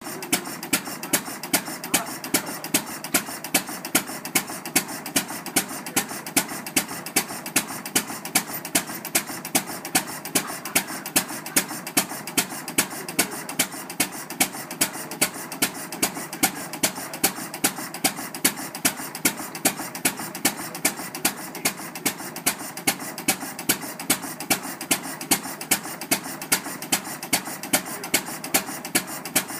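1916 International Harvester Mogul 6 hp hopper-cooled single-cylinder stationary engine running steadily. Sharp exhaust pops come about twice a second over a continuous mechanical clatter.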